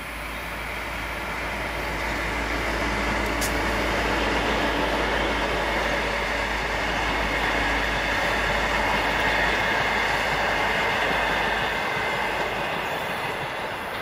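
V/Line N class diesel locomotive and its passenger carriages passing close by, a steady noise of wheels running on the rails. It swells over the first few seconds, holds, and fades near the end as the train goes by.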